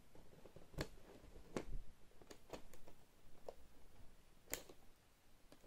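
Scissors cutting into the plastic film wrapping of a cardboard box: a string of faint, scattered snips and clicks, the loudest about four and a half seconds in.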